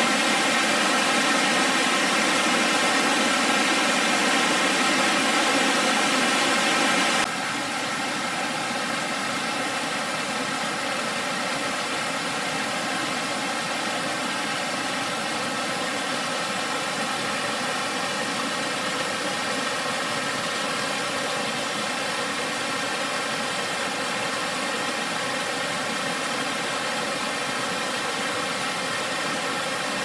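Steady rush of falling water from Purakaunui Falls, a three-tiered cascading waterfall. About seven seconds in the sound steps down abruptly to a slightly softer, still steady rush.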